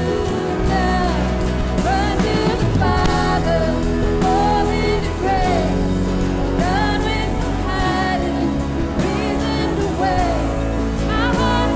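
Live Christian worship music from a church band: sung vocals over sustained chords and a steady beat.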